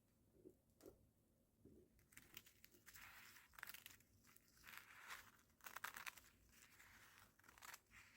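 Faint crinkling and rustling of plastic food packaging being handled and torn open, with a few soft taps before it starts about two seconds in.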